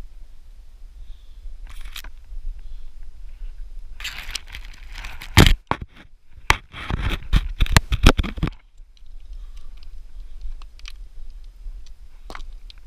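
Close scrapes, crackles and knocks over a steady low rumble, densest and loudest in a cluster from about four to eight seconds in.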